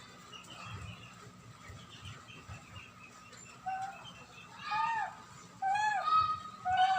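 A series of short, high, arching animal cries, about five in the last three seconds, over faint high chirping.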